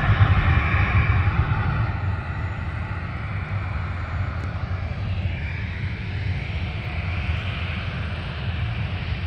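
Distant jet airliner engines running at taxi power under a heavy, steady low rumble, with a higher whine swelling about five to seven seconds in.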